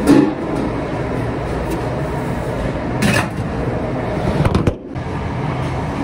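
Steady mechanical running din of a commercial dish room, with stainless-steel pots clanking as they are handled near the start, again about three seconds in, and in a short cluster of knocks near the end.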